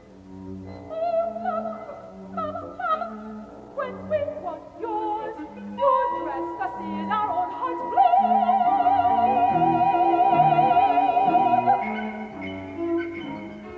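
Soprano singing a modern classical vocal line over a small chamber ensemble: short sliding notes at first, then about eight seconds in a long held high note with wide vibrato for some four seconds.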